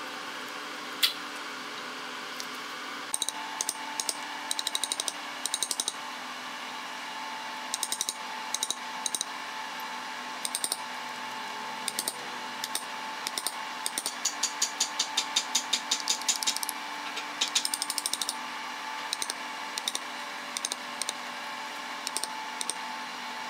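Wooden mallet striking a wood chisel, chopping out a notch in a solid timber block: runs of quick knocks, up to about five a second, broken by short pauses.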